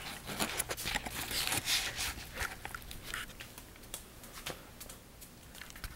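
A sleeping baby snoring, short breathy snores coming irregularly about every second or so.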